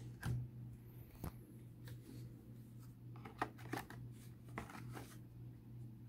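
Faint, scattered clicks and short scrapes of a metal laptop optical-bay SSD caddy being handled and slid into the laptop's DVD drive bay, with a few quick clicks in a row a little past the middle.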